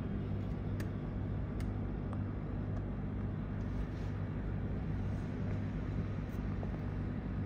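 A steady low hum, with a few faint light clicks from small screws being fitted into a laptop logic board.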